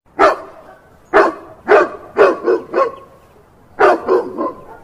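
A dog barking: about nine loud, sharp barks in short runs, with a pause of about a second before the last three.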